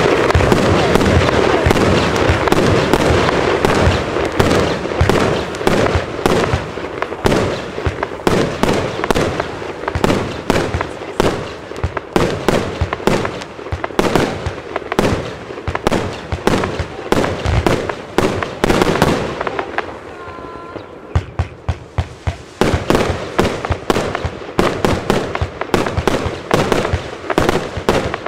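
Broekhoff Magnum P.I. 288-shot compound firework cake firing: a rapid, continuous stream of shots and bursts. It is dense at first, eases into a brief lull about twenty seconds in, then picks up again with distinct shots.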